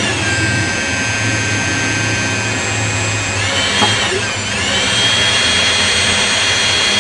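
Hydraulic pulling machine of a trenchless sewer-replacement rig running steadily with a low hum and a high whine, as its ram pulls the new pipe through the old line. About four seconds in, the whine sags in pitch under load and recovers.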